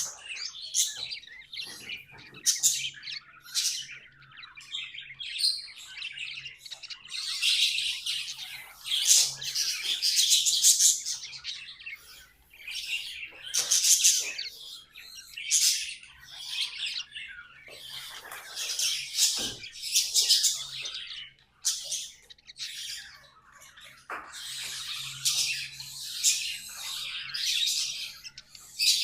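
Pet budgerigars chirping and warbling: rapid high chatter that comes in patches of a few seconds, with short lulls between.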